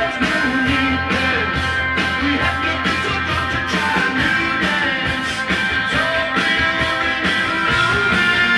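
Rock music with a steady beat playing from a vinyl record on a Pioneer PL-630 direct-drive turntable.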